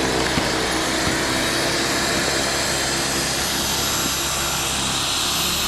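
Corded electric snow blower running steadily, its motor giving a constant drone over a broad rushing noise.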